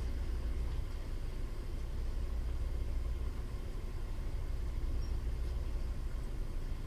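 Steady low hum with a faint even hiss, room background noise with no distinct events.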